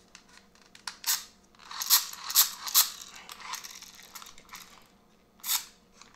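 Hand-crank dynamo flashlight being handled and wound: a few loud rattling clicks, then a fainter steady rattle of the crank and its gears, and one more loud rattle near the end.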